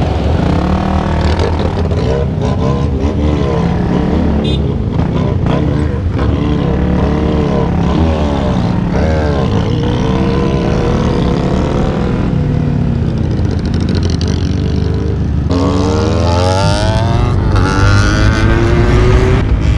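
Several motorcycle engines running together in slow traffic, their pitches rising and falling over one another as they rev. About sixteen seconds in, one engine accelerates hard, its pitch climbing, dropping back and climbing again as it shifts up.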